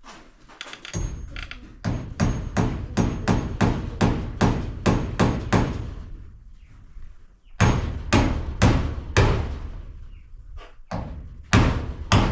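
Hammer driving nails with quick, even blows, about three a second, in three runs separated by short pauses.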